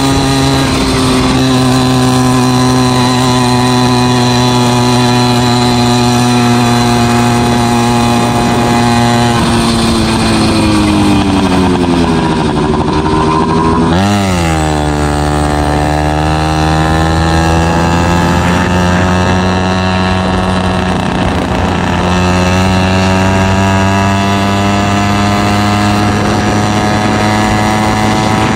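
An FM-80 two-stroke motorized bicycle engine with a small expansion chamber, running hard under way. Its pitch falls as the bike slows about ten seconds in, then climbs steadily from the middle as it accelerates again, and settles to an even high drone near the end.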